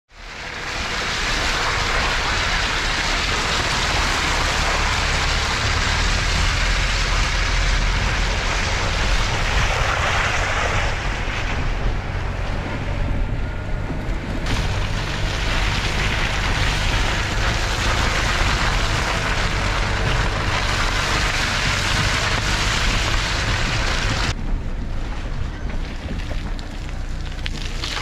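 Lada Niva driving along a muddy dirt track: steady engine rumble and tyre noise under heavy wind buffeting on a camera mounted outside the car.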